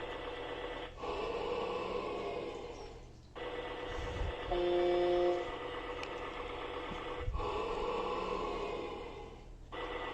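Fisher-Price Code 'N Learn Kinderbot toy robot's small speaker playing a sound effect in its sound test mode. A short steady horn-like tone is followed by a longer noisy stretch of about two seconds that fades out, and the pattern repeats twice.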